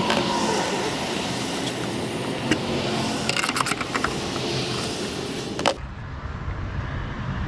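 A few sharp plastic clicks and knocks as a van's taillight housing and trim are fitted back in place, over a steady hiss that cuts off abruptly near the end, leaving a low rumble.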